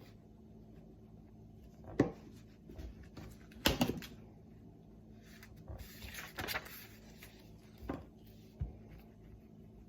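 Handling noises of a paper craft being glued: scattered small clicks and taps, a brief rustle of paper about six seconds in, and a low thump near the end.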